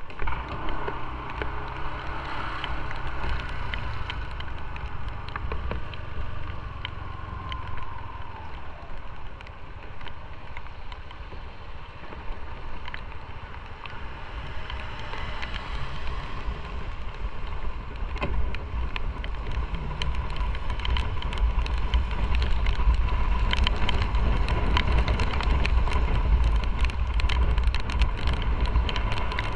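Motorcycle riding on a rain-wet road: engine running with wind rumble on the microphone and tyre hiss, growing louder in the last third as the bike picks up speed.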